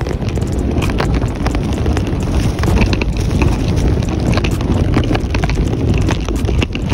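Wind buffeting the microphone: a loud, steady rumble with frequent short crunchy clicks from snow.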